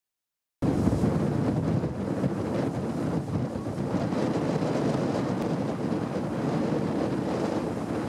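Wind buffeting the microphone: a steady low rumble that starts about half a second in.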